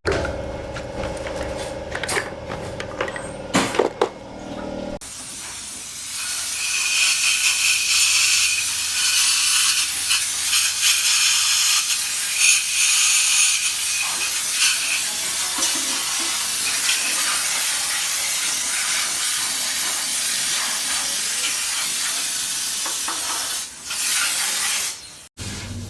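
A few clinks and knocks, then a pressurised jet hissing loudly and steadily for about twenty seconds, cutting off abruptly near the end.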